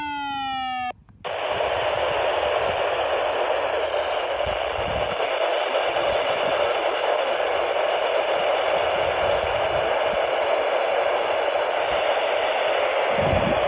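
A falling electronic alert tone cuts off about a second in. After a brief dropout comes steady static hiss from a weather radio receiver.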